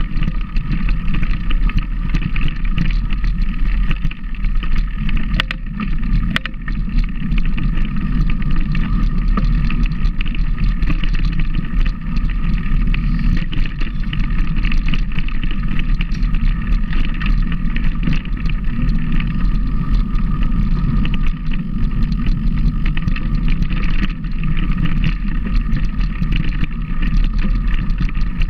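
Loud, steady running noise of a vehicle in motion, with a strong low rumble and no change in pitch.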